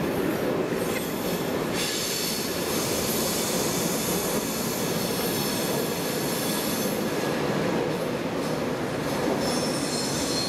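SNCB passenger coaches rolling along the station track with a steady rumble. Their wheels squeal in thin high tones for several seconds, and again near the end, as the train clears the platform.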